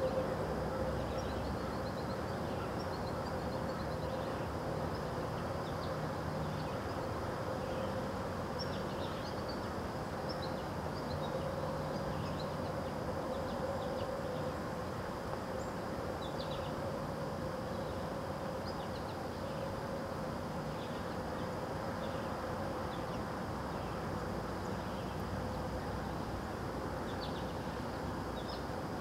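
Steady outdoor ambience: an even buzzing hum with one constant droning tone, and faint, scattered bird chirps.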